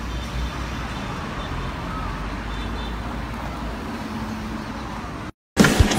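Steady city street traffic noise, a low rumble of road vehicles, which cuts off suddenly about five seconds in; after a brief moment of silence a much louder sound starts abruptly at the very end.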